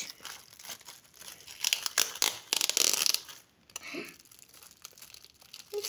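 Metallic foil gift wrap being torn and crinkled by hand: a spell of loud crackling and ripping in the middle, dropping to light rustling near the end.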